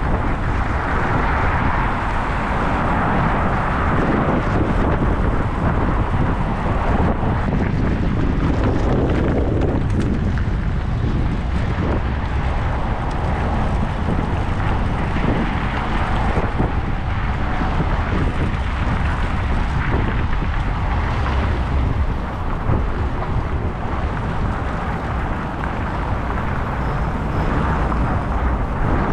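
Wind buffeting the microphone during a bike ride, over steady road and traffic noise.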